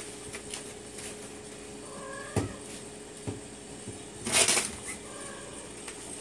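A hairless cat giving two short, faint meows, about two seconds in and again near five seconds. A loud brief rustle comes between them, about four and a half seconds in.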